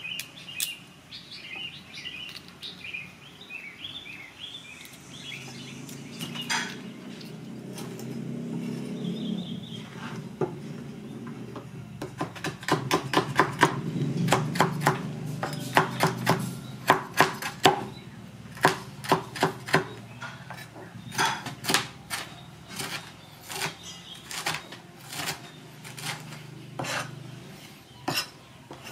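A cleaver chopping ginger-like root and spices on a cutting board: a fast, uneven run of sharp knocks from about twelve seconds in. Short high chirps come in the first few seconds.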